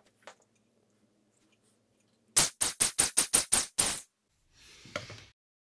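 A quick run of about eight short, sharp blasts of air, then a softer hiss: swarf being blown out of a freshly drilled pilot hole in an aluminium engine block.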